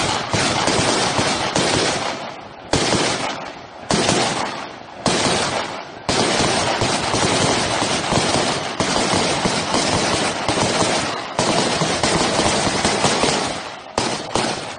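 Heavy automatic gunfire mixed with ground explosive charges going off, a sharp new blast every second or two over a steady rattle of shots. It dies down near the end.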